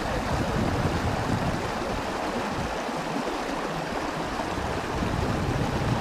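Shallow rocky stream running steadily over stones, a continuous even rush of flowing water.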